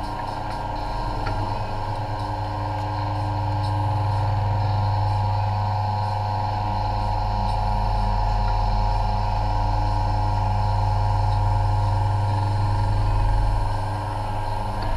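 Steady low machine hum made of several constant tones, holding level throughout with no clear starts or stops.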